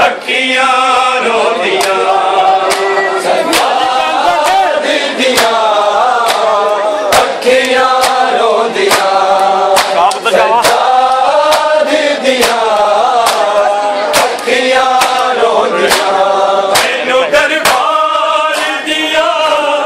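Male voices chanting a Punjabi noha, a Shia mourning lament, in chorus, with a steady beat of sharp slaps from matam (chest-beating).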